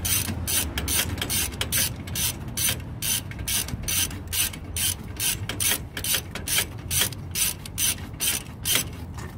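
Socket ratchet wrench clicking in quick, even strokes, about three to four clicks a second, as an exhaust bolt is backed off.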